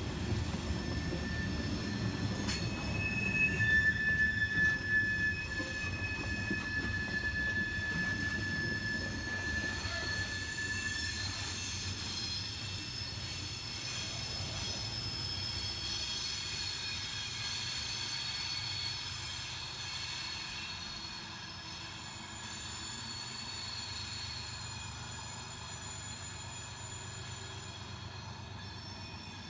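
Loaded coal hopper cars rolling past on the rails, with the wheels squealing in thin, steady high tones, loudest a few seconds in. The rumble and squeal fade as the end of the train draws away.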